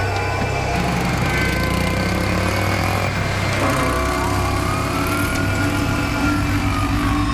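Car engine idling with a steady low rumble. A thin tone rises and falls slowly over the second half.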